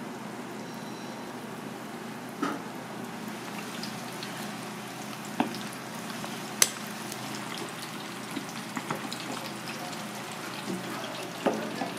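Battered food deep-frying in a tray of hot oil, a steady sizzle and bubble. A few sharp clicks cut through it, the loudest about six and a half seconds in.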